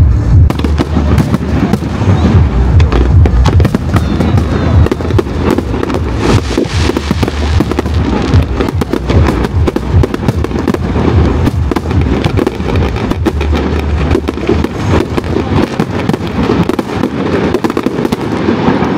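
Fireworks display going off in rapid, dense succession: continuous crackling and popping over a deep, rolling rumble of bursting shells.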